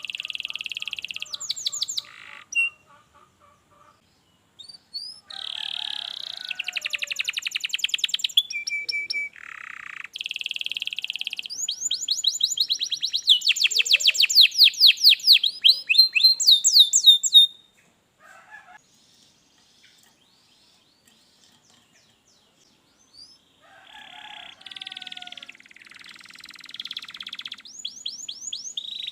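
Domestic canary singing long song phrases of fast trills and rolls, with high chirping notes. The song stops for about five seconds past the middle, then starts again.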